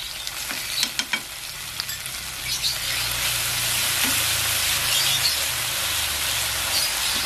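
Sauces sizzling in a hot pan of fried garlic, shallots and chillies as a metal spatula stirs them in. There are a few scrapes and taps of the spatula about a second in, and the sizzle grows louder and steadier from about three seconds in.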